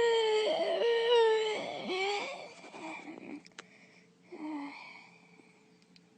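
A young girl's voice, a cartoon character, yawning: one long, high, drawn-out yawn that wavers and falls away at the end, then a shorter, lower yawn about four seconds in.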